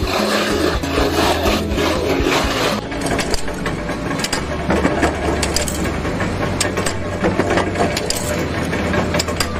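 Continuous rough rasping and scraping, dense with small clicks, over a steady low hum.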